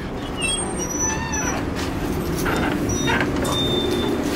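Car driving, heard from inside the cabin as a steady low rumble, with a few short high-pitched chirps and squeaks over it.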